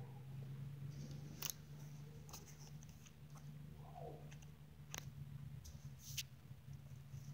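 Faint scattered clicks and light rustling over a steady low hum, with one short falling squeak about four seconds in.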